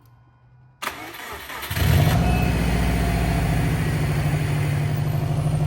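2008 Subaru Outback XT's turbocharged 2.5-litre flat-four cranked on the starter, catching after about a second and then running steadily, its first start after being installed.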